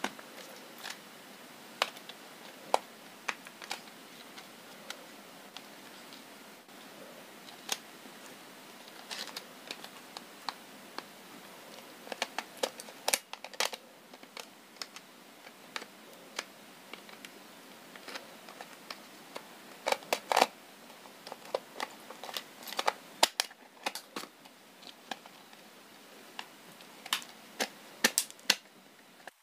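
Irregular sharp plastic clicks and snaps as the back housing of a Jio Phone feature phone is pried off its clips with a plastic card and the handset is handled, busiest in the second half.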